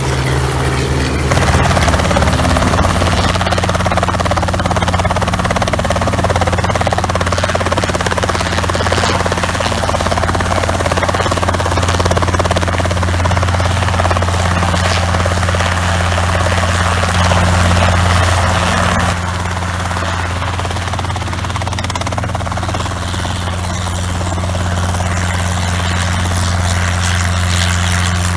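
Robinson light helicopters running: the steady drone of rotor and piston engine as an R44 climbs away, then an R22 running on the ground and lifting into a low hover.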